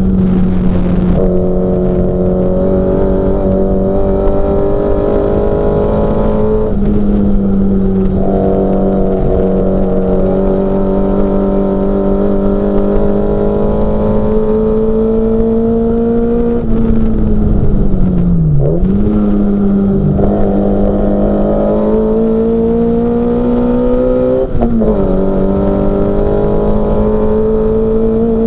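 Mini Cooper S race car's four-cylinder engine running hard at high revs, its pitch holding nearly steady and creeping slowly upward. Its pitch dips briefly and picks up again twice in the latter half.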